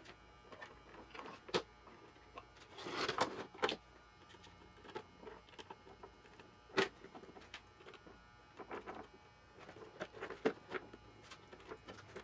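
Hard plastic housing of a single-serve coffee maker being handled and pressed back into place: scattered clicks and knocks, with a short scraping rustle about three seconds in and a sharp knock near seven seconds.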